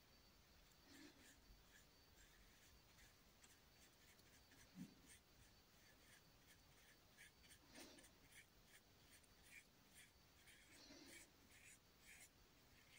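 Faint, short scratchy strokes of a paintbrush working acrylic paint on canvas, several a second in an irregular rhythm, with a few soft low thuds.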